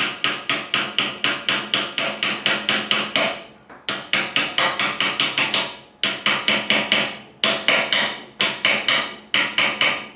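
Hammer gently tapping a steel engine-mount bolt through the frame bracket of a Suzuki GS550, quick light strikes about six a second in several runs with short pauses; the bolt is going through.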